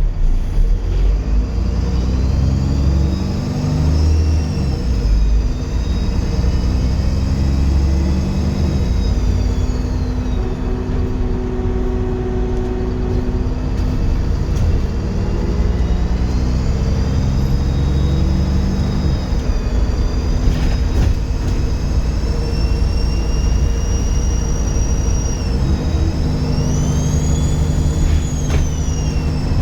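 Dennis Trident 2 bus engine pulling under load, its note climbing and dropping again and again, with a loud high turbo whistle rising and falling over it several times, the strongest rise near the end.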